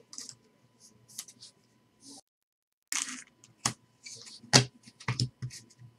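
Trading cards handled by hand: a scattering of soft flicks, slides and clicks as cards are moved against each other, with a few sharper snaps in the second half.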